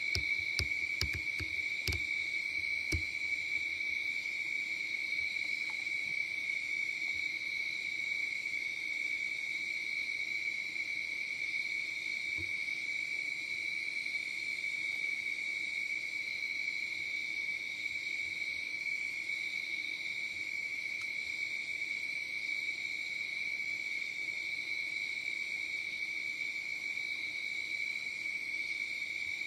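Crickets trilling in one steady high tone, unbroken throughout, with a few sharp clicks in the first three seconds.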